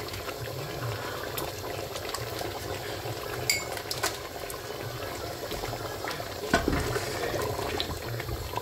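Thick lentil dal simmering and bubbling in a pot, with a few light clicks and knocks, the loudest about six and a half seconds in.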